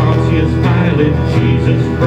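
Worship band music with guitar and singing, playing steadily.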